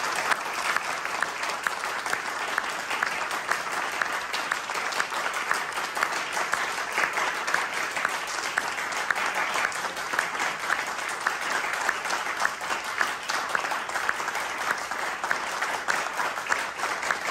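Audience applauding: a dense, steady run of many hand claps.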